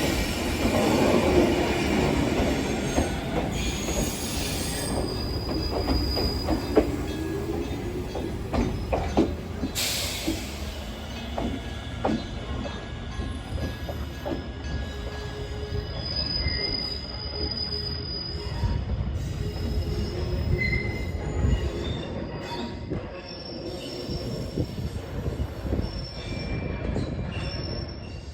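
Echizen Railway electric train running slowly through a station, its wheel flanges squealing against the rail in high tones that come and go over a low rumble. Scattered clicks come from the wheels on the track.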